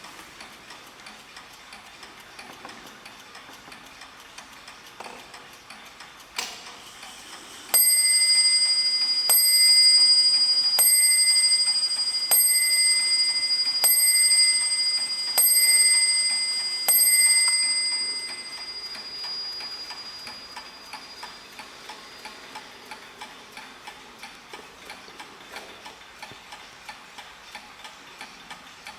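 Mantel clock ticking steadily, then striking seven times at the same pitch about a second and a half apart, counting seven o'clock, with a click just before the first strike. The last strike rings on and fades while the ticking carries on.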